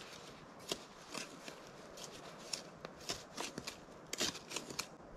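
Irregular light scrapes, clicks and crunches from hands-on work in the dirt around a sunken deer feeder leg.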